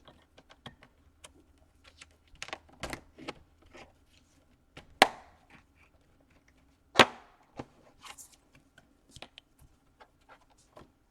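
Plastic clips of a laptop's bottom case clicking and snapping loose as a guitar pick is worked along the seam: a run of small clicks with two loud snaps a couple of seconds apart midway.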